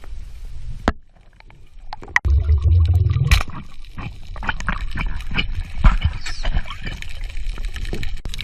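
Underwater sound picked up by a diver's camera: low rushing of water with many sharp clicks and knocks. A sudden loud low rumble starts about two seconds in and lasts about a second.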